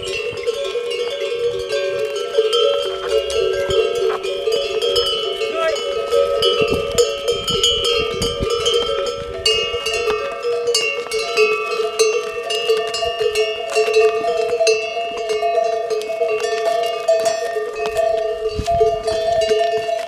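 Several yak bells ringing and clanking together without a break as a loaded yak train walks by, their pitches shifting as different animals pass.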